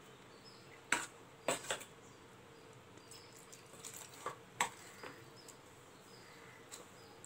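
Wooden spoon stirring a thick biscuit-crumb and milk mixture in a steel bowl, with a handful of sharp clicks as the spoon knocks against the bowl, over quiet room noise.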